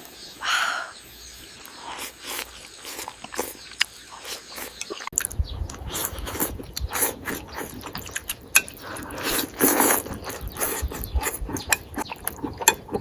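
Close-miked eating of momos (dumplings): biting and chewing with many short wet mouth clicks, growing fuller and heavier about five seconds in.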